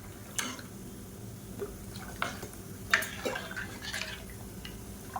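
A spoon stirring watery rasam in a metal pan: liquid splashing, with about half a dozen scattered clinks of the spoon against the pan.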